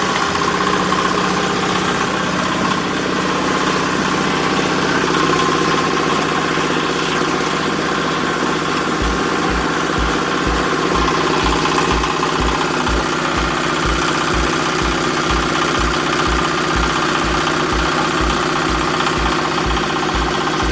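Diesel engine driving the hydraulic pump of a baling press, running steadily. About halfway through, a low regular pulse of roughly two beats a second joins in.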